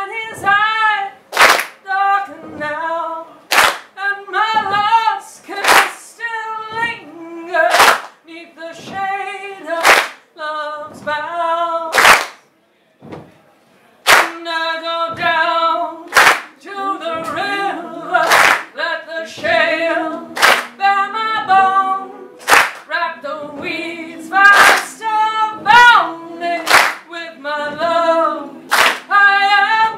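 A woman singing a gospel-style blues a cappella, with a sharp handclap about every two seconds keeping the beat. The singing breaks off briefly near the middle, then comes back fuller, with several voices singing together.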